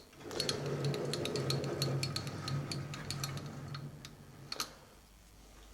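A metalworking lathe runs briefly: a sharp click, then a low hum with rapid, regular ticking that builds up over half a second and dies away gradually over the last couple of seconds as the machine coasts down.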